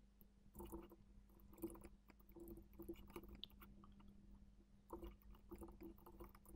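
Near silence: faint scattered computer mouse clicks over a low steady hum.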